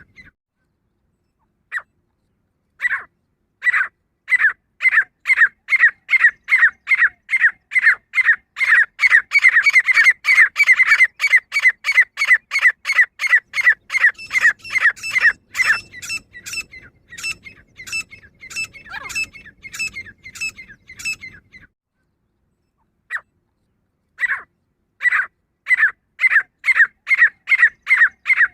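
Female grey francolin (teetar) calling: a long series of short, sharp, squeaky notes at about two to three a second, loudest in the middle, breaking off for about two seconds near the end before starting again.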